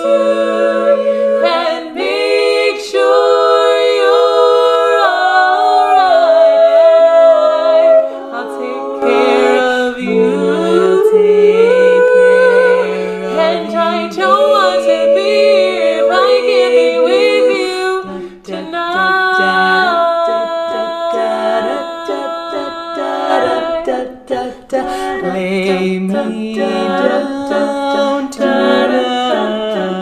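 Women's barbershop quartet singing a cappella in close four-part harmony: held chords that shift from note to note, with the bass voice at the bottom.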